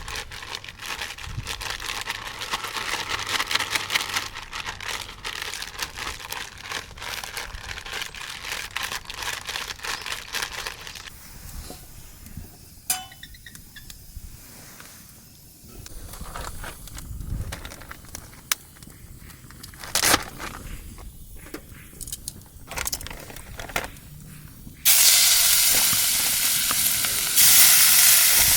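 Campfire cooking: food sizzling over the fire with dense crackling at first, thinning to scattered pops and clicks. Near the end a loud steady hiss starts suddenly.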